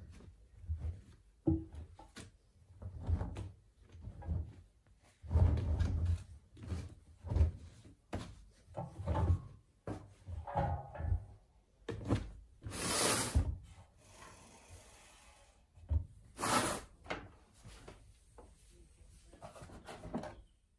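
Damp towels being pulled by hand out of a front-loading washing machine's drum: irregular rustling and soft thuds of wet cotton against the drum and door seal, with two louder bursts past the middle.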